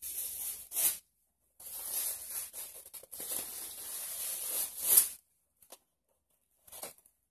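Gift wrapping paper tearing and crinkling as a package is unwrapped, in a short stretch and then a longer one of about three and a half seconds, with the sharpest rip at its end.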